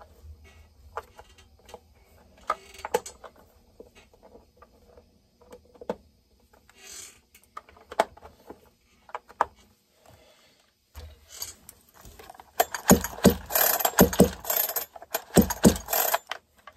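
Light clicks and taps of chainsaw parts being handled and fitted, then, about twelve seconds in, a run of loud rasping pulls on the recoil starter of a Neotec NH872 two-stroke chainsaw, turning the engine over against its compression without it firing.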